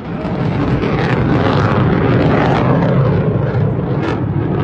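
Rocket motor of an Arrow interceptor missile in flight: a loud, continuous rushing noise that swells over the first couple of seconds and eases off near the end.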